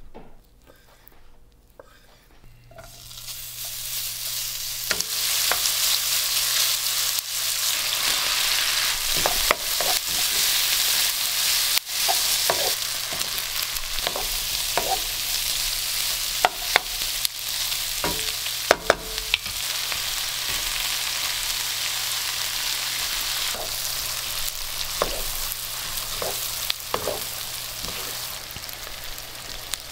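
Bacon, onions and king oyster mushrooms sizzling in a frying pan, starting about two and a half seconds in after a few quiet moments, with scattered sharp clicks from stirring in the pan.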